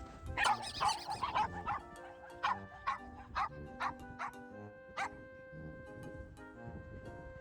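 A dog barking, a quick flurry of barks followed by about six single barks spaced half a second to a second apart, over background music that plays throughout.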